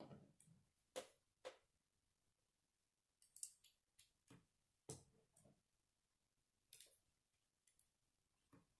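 Faint, irregular clicks and taps of plastic Lego bricks being handled and pressed together, about ten small clicks spread unevenly.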